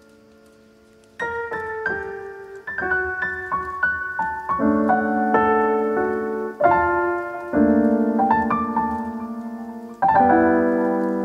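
Background piano music: struck notes and chords that ring out and fade, soft at first and louder from about a second in.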